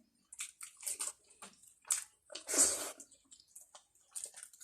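Close-up wet eating sounds: chewing with small lip-smacking clicks, and a louder noisy rush about two and a half seconds in.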